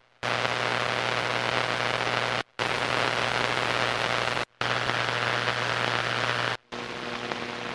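High-voltage power-line interference heard through a ham radio receiver: a harsh static hiss with a steady 120 Hz buzz. It plays as four short recordings in a row, separated by brief silences, and the last one is quieter.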